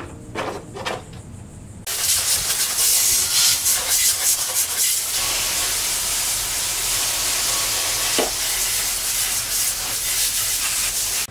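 A few knocks as a push mower is set down on wooden sawhorses, then a garden hose spraying water against the underside of the mower's steel deck: a steady, loud hiss that starts suddenly about two seconds in, with one short knock near the end.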